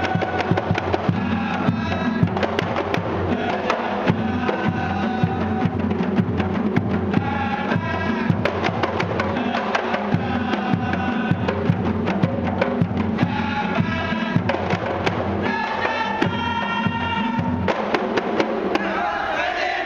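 A troupe of kompang, hand-struck Malay frame drums, beating a dense rhythm of sharp slaps, with men singing together over the drumming.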